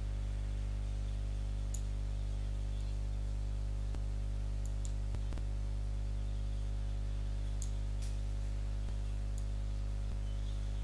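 A few sharp computer mouse clicks, spread out, as a circle is drawn and resized in embroidery software, over a steady low electrical hum.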